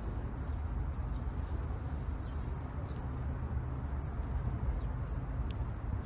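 Steady high-pitched insect chorus over a low rumble, with a few brief bird chirps scattered through from about two seconds in.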